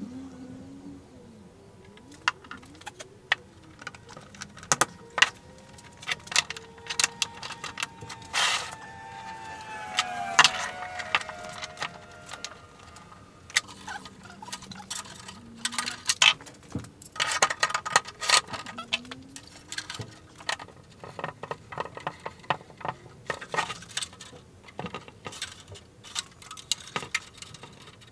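Steel pipe clamps clinking and clacking against each other and the bench as they are set and tightened around a glued drawer box, with many sharp metallic clicks and knocks scattered throughout.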